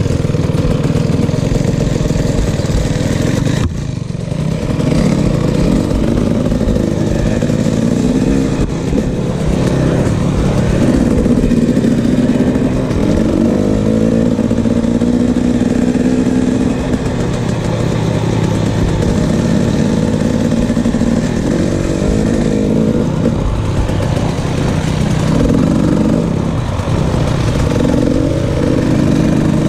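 KTM 300 XC-W two-stroke dirt bike engine running under load on a trail ride, its pitch rising and falling with the throttle. There is a short let-off about four seconds in.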